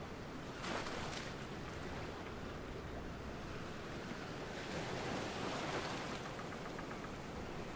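Waves washing against the shore: a steady water noise that swells briefly about a second in and again past the middle.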